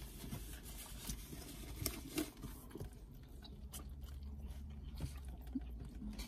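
A person chewing Chinese takeout food close to the microphone: irregular, scattered mouth clicks and smacks over a low steady hum.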